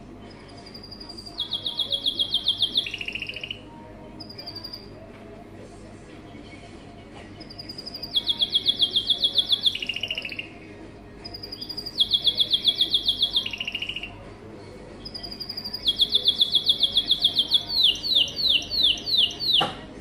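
Red-factor canary singing: four bouts of rapid trills made of fast repeated high notes, with a single short note between the first two. The last bout ends in about six quick downward-sweeping notes.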